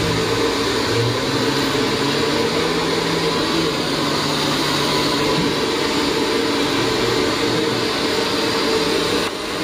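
Hand-held hair dryer blowing steadily while a customer's long hair is blow-dried.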